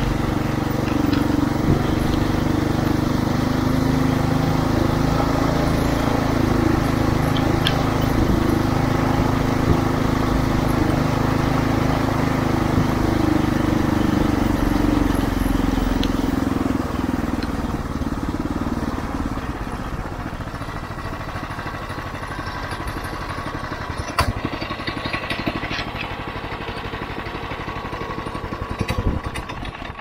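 Snezhny Region SR-21 motorized all-terrain vehicle's engine running under way at a steady speed. About two-thirds of the way through it eases off and runs quieter as the vehicle slows.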